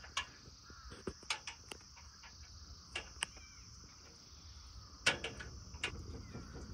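Metal barbecue skewers clinking against a small portable charcoal grill as they are laid across it: about eight sharp clicks at uneven intervals. A steady high insect chorus runs underneath.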